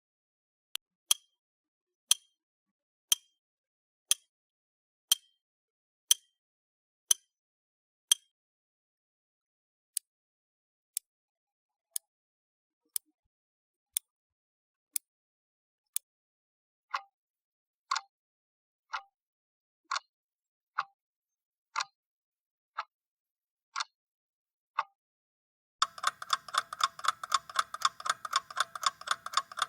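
Clock ticking once a second, in three short runs with a different tick tone each, the first with a slight ring to each tick. Near the end a clock alarm starts ringing rapidly and continuously.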